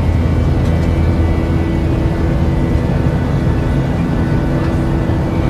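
Jet airliner engines running steadily: a constant low rumble with steady whining tones layered over it.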